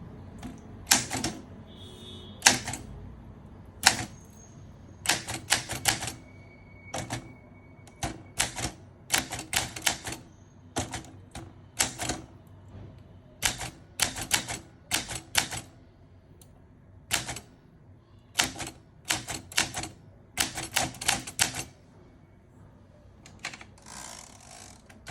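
1970 Olympia SM9 manual typewriter being typed on: sharp key strikes in quick clusters of two to five, with short pauses between them. Near the end comes a longer rasping sound of about a second and a half.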